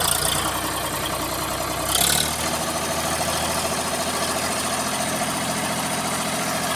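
Swaraj 855 FE tractor's three-cylinder diesel engine running steadily while hauling a sand-loaded trolley. About two seconds in there is a short hiss, and the engine note steps up slightly, then holds.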